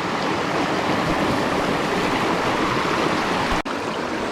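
Mountain stream water rushing steadily over rocks, with a brief dropout in the sound a little after three and a half seconds in.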